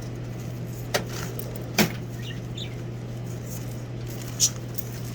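Three sharp clicks or knocks from hands opening a reptile shipping container, the loudest about two seconds in, over a steady low electrical hum.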